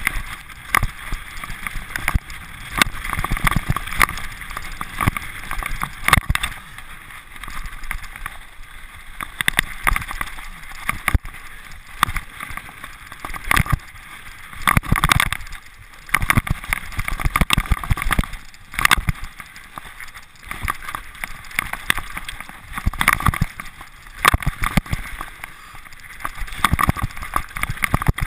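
Mountain bike running fast over loose slate rock: a constant rattle and clatter of tyres and frame, with frequent sharp knocks as the wheels hit stones.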